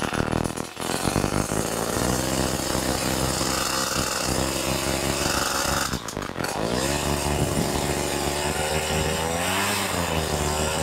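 Paramotor engine running at low revs while it warms up after standing unused. About six seconds in it briefly dips, then its pitch rises and falls as the throttle is worked.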